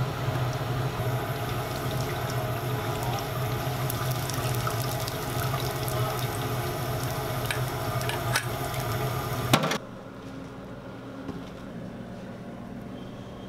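Pressed sushi-rice patty deep-frying in hot oil in a commercial fryer: steady sizzling and bubbling with scattered pops, cutting off sharply about ten seconds in. A quieter low hum follows.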